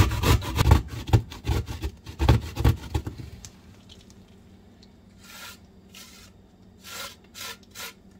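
Zucchini being grated on a stainless steel box grater: quick rasping strokes for about three seconds, then the grating stops, leaving a few faint short scrapes.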